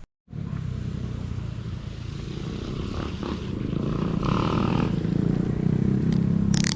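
Motor vehicle engine running steadily and getting gradually louder, with a short sharp sound near the end.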